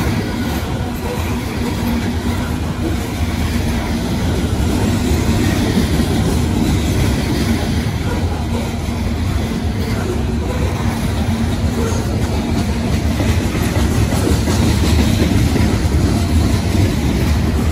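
Loaded CSX coal hopper cars rolling past: a steady rumble of steel wheels on the rails, heaviest in the low end, growing a little louder in the second half.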